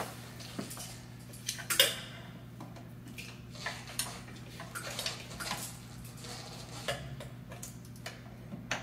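Sparse light metallic clinks and taps as a gearbox bellhousing is worked onto the back of a Jaguar E-Type engine and pliers are handled against the bellhousing; one clink, about two seconds in, is louder than the rest. A low steady hum lies underneath.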